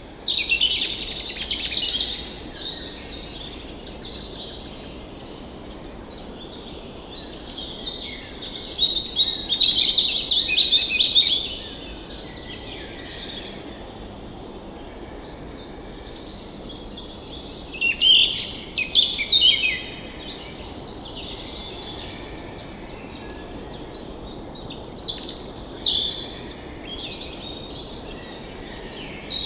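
Songbirds chirping and trilling over the steady rush of a forest stream, the birdsong coming in several louder bursts.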